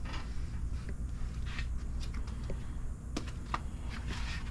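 Light clicks, taps and short rustles of parts being handled, with a few sharper clicks a little after three seconds in, over a steady low hum.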